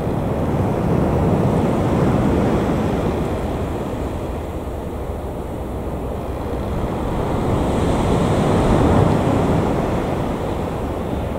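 Embraer E190 airliner's twin turbofan jet engines rumbling during its landing rollout after touchdown, swelling twice and loudest near the end, with wind buffeting the microphone.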